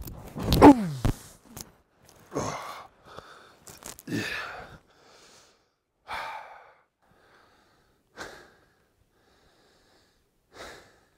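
Boots crunching through deep powder snow, then a loud cry falling in pitch as a man drops into the snow. After that comes heavy breathing while he lies there, one loud breath about every two seconds.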